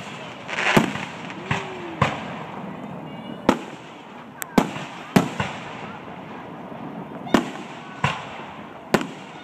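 Aerial fireworks shells bursting: about ten sharp bangs at irregular intervals, some trailing off in a short echo.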